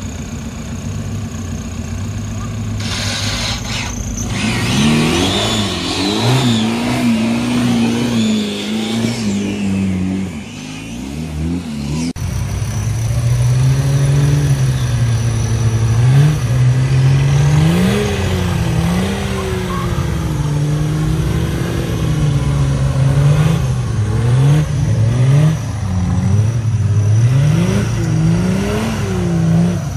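Off-road buggy engine revved hard again and again as the buggy claws its way up a steep, muddy hill climb. The pitch climbs and drops every second or two. About twelve seconds in the sound changes to a deeper engine doing the same.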